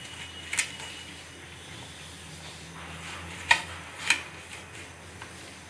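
Three sharp clicks of chicken and fingers knocking against a ceramic plate while raw chicken is coated in flour by hand, over a steady low hum.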